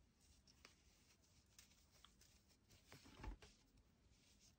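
Near silence, with faint rustling and light ticks of a crochet hook drawing yarn through stitches, and one slightly louder soft knock about three seconds in.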